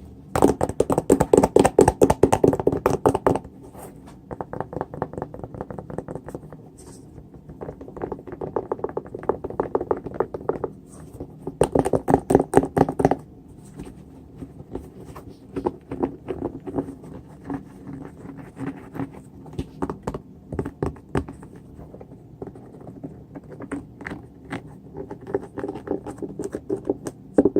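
Fingers tapping rapidly on a Nike Air Force 1 sneaker. Fast runs of taps come in bursts a second or few long, the loudest near the start and again about twelve seconds in, with lighter, sparser taps and scratches between.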